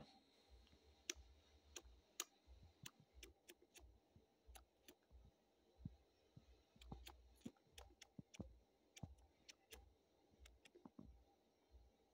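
Near silence broken by faint, irregular clicks and soft low thumps: small scuffling noises as a cat grabs and kicks at a hand on a bedsheet.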